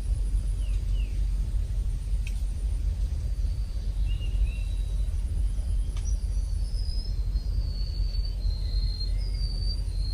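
Steady low outdoor rumble with small birds chirping over it in short, high, thin calls that come more often in the second half; two faint clicks about two and six seconds in.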